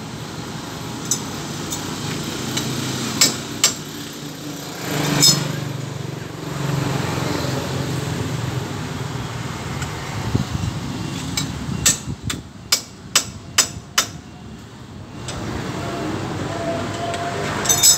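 Sharp metallic hammer-like strikes and clinks from tool work on a Honda motorcycle's drive chain during chain replacement: a few scattered taps, then a quick run of about six strikes a little over halfway through, over steady street traffic noise.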